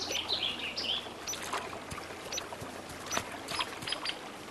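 Woodland ambience: a bird calling in short, falling high chirps during the first second, then scattered light clicks and small water splashes.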